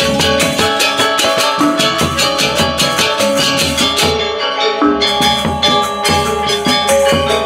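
Balinese gong kebyar gamelan playing a lelambatan piece: many bronze metallophones struck with mallets in fast, steady strokes, their keys ringing together in a dense shimmer. The high ringing drops out briefly a little past halfway, then the strokes resume.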